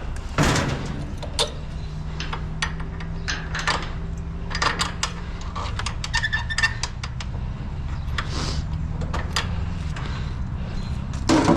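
Scrap metal being handled and strapped down on a truck: a run of sharp clanks, knocks and rattles, with a few louder hits, over a steady low hum.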